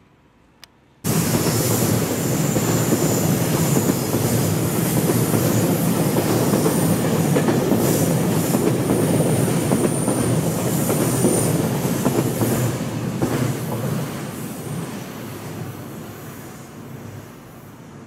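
A train passing close by: a loud, steady rumble and rattle with a faint high whine, cutting in suddenly about a second in and dying away over the last few seconds.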